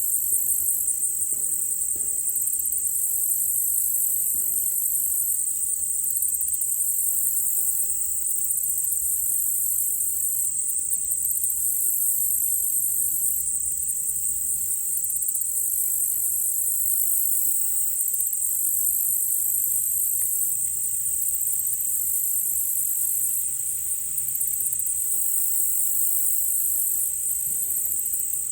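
Chorus of crickets and other night insects: one steady, high-pitched trill, with a second, higher pulsing layer that swells and fades every second or two.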